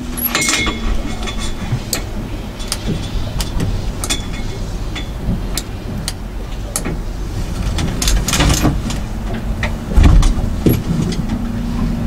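A boat engine running steadily, a low rumble with a faint hum. Over it come scattered clicks and knocks from a rebreather's buckles, clips and fittings being handled, and a heavier thump about ten seconds in.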